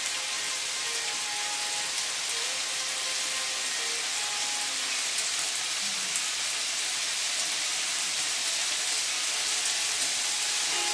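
Beef steak pieces sizzling in a hot grill pan: a steady hiss with scattered small pops.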